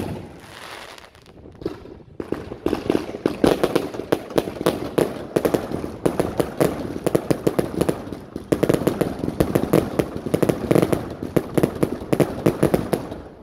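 A Lightning Strike firework going off. It opens with a sharp bang and a short hiss, then about two seconds in breaks into dense, rapid crackling and popping that eases briefly around the middle.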